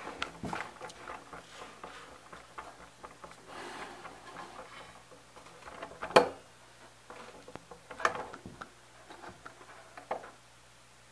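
Handling noises close to the microphone: light rustling and clicks with scattered knocks, the sharpest about six seconds in and others near eight and ten seconds.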